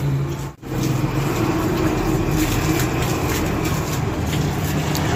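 Steady road traffic and vehicle engine noise with a low hum, and a few short clicks or scrapes in the middle.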